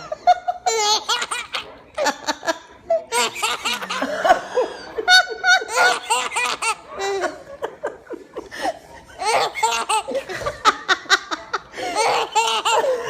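Hearty, high-pitched laughter in repeated fits, with short pauses between the bursts.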